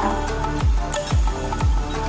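Background music with a steady electronic beat: deep kick drums that drop in pitch, about two a second, under held synth notes.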